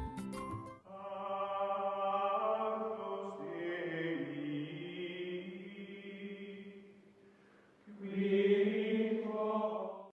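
Background music of sustained, choir-like chanted notes in two long held phrases; the second phrase begins about eight seconds in and then cuts off suddenly.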